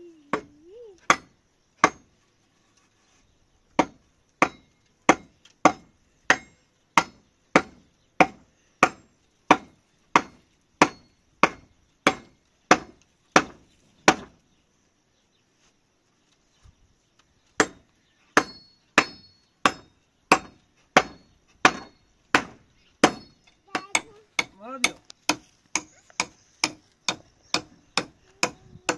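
Hammer blows struck in a steady run, about three every two seconds, stopping for a few seconds midway, then going on a little faster; some blows ring briefly.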